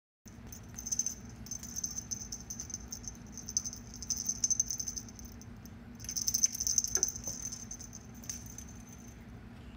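Small jingle bell on a kitten's collar jingling rapidly as the kitten pounces on and bats at a feather wand toy. It comes in two bursts: a long one over the first few seconds and a shorter, louder one about six seconds in.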